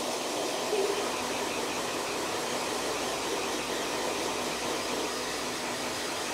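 Handheld hair dryer running steadily, blowing air.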